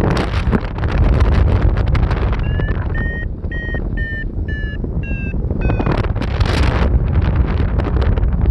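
Strong wind buffeting the microphone, with a paragliding variometer beeping about twice a second through the middle, its pitch shifting slightly from beep to beep: the climb tone that signals rising air.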